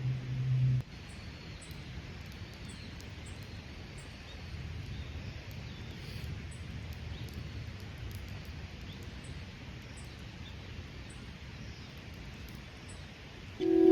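A low steady hum that cuts off abruptly under a second in, then quiet outdoor background noise with faint, scattered bird chirps.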